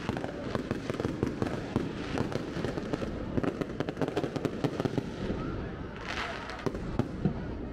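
Fireworks going off: a dense, irregular run of sharp cracks and pops over a steady low rumble, with a burst of crackle about six seconds in.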